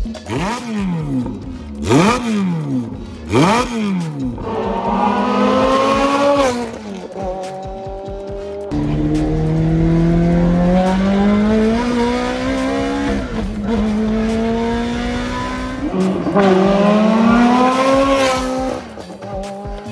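Ferrari F430's V8 through a Capristo valved exhaust: three quick revs, then repeated hard pulls where the note climbs in pitch and drops back at each upshift, with one more rising pull near the end.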